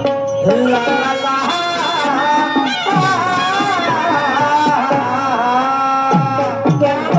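Traditional Marathi tamasha folk music: a wavering melody over a steady held tone, with hand-drum strokes whose bass swoops down in pitch about once a second.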